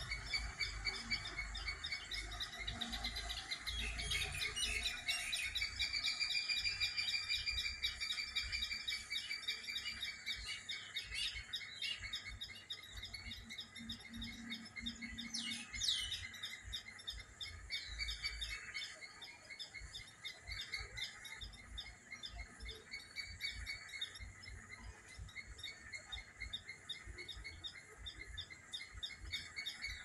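Several birds chirping and singing together in a morning chorus, with quick repeated notes and trills overlapping. About sixteen seconds in, one louder call sweeps sharply downward.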